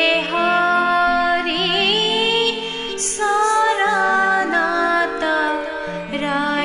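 Assamese devotional prayer song: a voice singing with vibrato over held accompanying notes.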